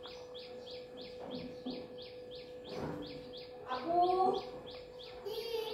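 A small bird chirping over and over, about three short chirps a second. About four seconds in, a louder hen's clucking call stands out as the loudest sound. A faint steady hum runs underneath.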